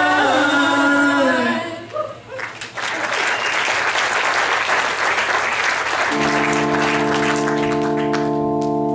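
A congregation's final sung chord held and then released, followed by the congregation applauding. An organ-like keyboard chord sustains under the applause from about six seconds in.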